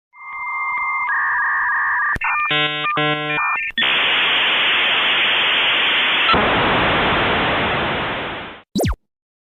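Electronic sound effect: steady beep tones, then two short buzzy pulses, then about five seconds of loud hissing static that fades out. A very quick falling zip comes near the end.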